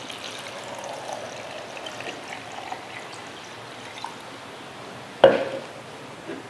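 Water being poured into a small high-speed blender jar onto soaked ingredients. About five seconds in there is a single sharp knock.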